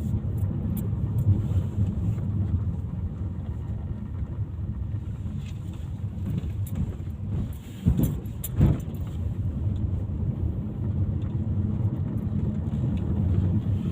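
Steady low rumble of a vehicle on the move, with light rattling and two sharp knocks about eight seconds in.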